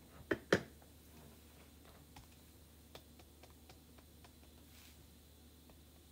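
Two sharp clicks in quick succession, then faint scattered light taps as chalk paste is dabbed through a silkscreen transfer with a plastic squeegee.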